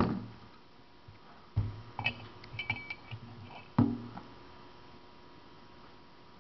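Small metal tools and hydraulic jack parts being handled and set down on a workbench. A knock at the start is followed by a few light ringing metal clinks about two seconds in and another sharp knock near four seconds.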